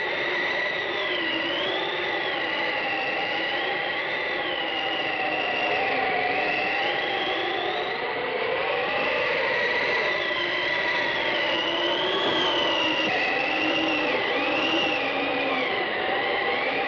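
Halloween sound effect from a 1970s LP: a steady rushing whoosh with whistling tones that waver and slide slowly up and down, over a steady high tone.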